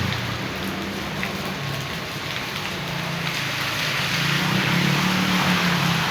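Rain falling and rainwater running in a steady hiss, with a low engine hum underneath that grows louder in the second half.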